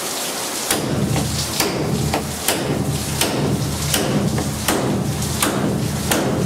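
Hammer blows on the sheet-metal inner roof panel of a 1969 Chevrolet C10 cab, about eight evenly paced strikes, bending curve into the panel. Rain patters on the shop roof throughout.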